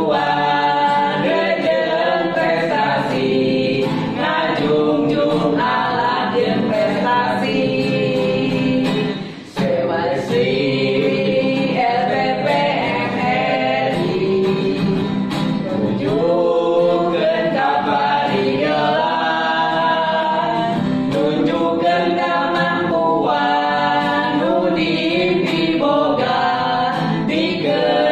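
A group of men's and women's voices singing together in Sundanese to acoustic guitar accompaniment, with a brief break about nine and a half seconds in.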